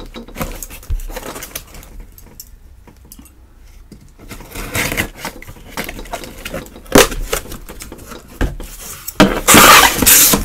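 Packing tape along a cardboard box seam being sliced with a small blade: scraping and the odd knock of the cardboard, then a loud rip near the end as the taped flap is torn open.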